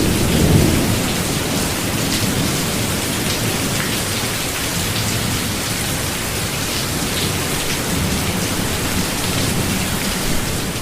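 Rain and thunderstorm sound effect: steady heavy rain with low thunder rumbling, strongest about the first second.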